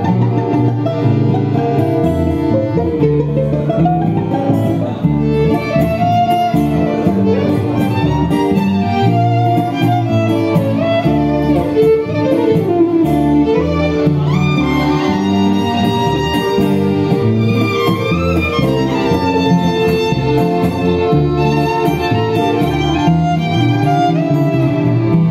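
Live instrumental music: a violin plays the lead melody with sliding notes, over double bass and acoustic guitar accompaniment.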